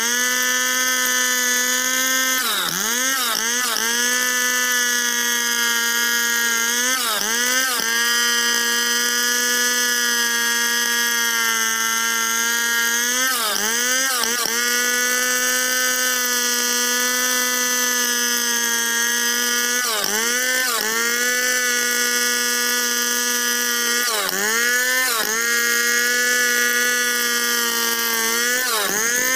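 Stihl two-stroke chainsaw running at full throttle while ripping lengthwise through a squared log. It runs at a high, steady pitch that dips briefly and recovers several times, every few seconds.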